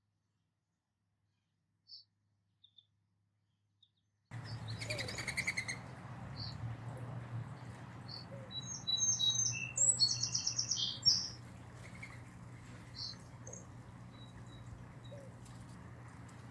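Wild songbirds chirping and calling at a backyard feeder: a few faint chirps, then after about four seconds a steady outdoor background with a low hum, a brief rapid rattling call, and a cluster of high chirps and calls in the middle.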